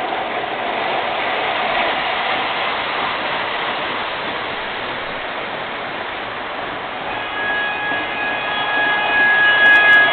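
Model subway train running on three-rail track: a steady rolling rumble of wheels and motor as it passes. About seven seconds in, the noise swells again and several steady whining tones come in as a train approaches.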